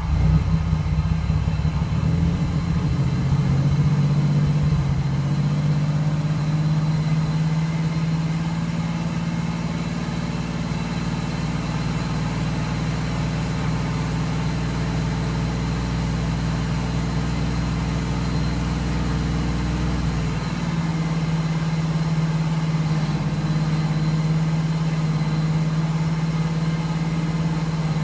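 Chevrolet Camaro engine idling steadily after its first start in three months, its note stepping up slightly a few seconds in and shifting again about twenty seconds in.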